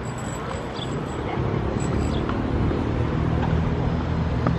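Low, steady engine hum growing gradually louder, like a motor passing nearby.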